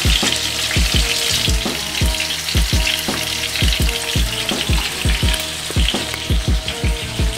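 Chicken pieces sizzling as they brown in a skillet over a gas burner: a steady hiss, with many short low thumps a few times a second.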